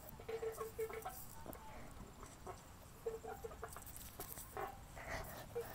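A hen clucking in short runs of quick, low clucks, three times over, with footsteps crunching on dry leaf litter.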